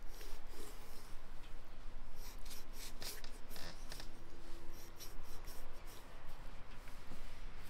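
Large kitchen knife cutting into a raw beef rib slab on a wooden cutting board: a run of short scraping strokes of the blade through meat and membrane, thickest in the middle.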